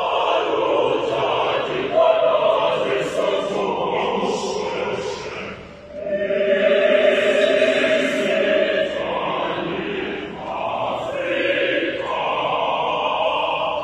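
Mixed choir of women's and men's voices singing an African choral piece in long, sustained phrases, with short breaks about six and ten seconds in.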